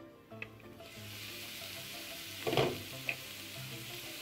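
Diced snake gourd and carrot sizzling in a frying pan, the sizzle starting about a second in. A single knock against the pan a little past halfway is the loudest sound.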